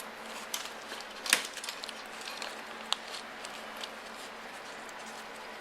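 Scattered light clicks and rustles of a car wiring harness and small hand tools being handled, with one sharper click a little over a second in.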